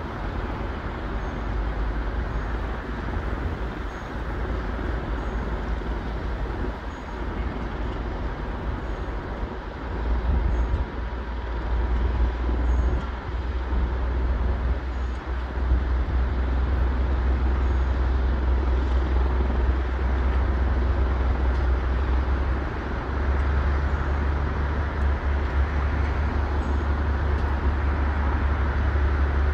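Mobile crane's diesel engine running under load as it lifts a tower-crane jib section: a steady low rumble that climbs in level about ten seconds in and again a few seconds later.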